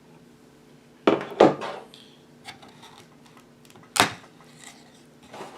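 Objects being handled on a workbench: two sharp knocks about a second in and another about four seconds in, over a low steady hum.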